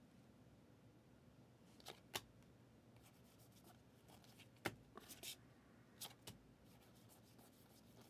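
Trading cards being thumbed through a stack in the hand: several faint, sharp snaps and slides of card stock against card stock, against near silence.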